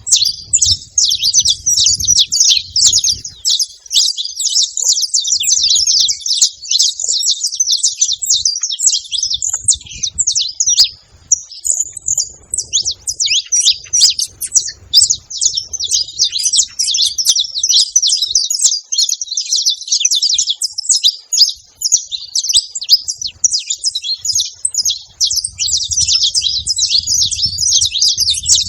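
Several saffron finches singing and chirping together in a dense, rapid, unbroken stream of high chirps, thinning briefly about eleven seconds in.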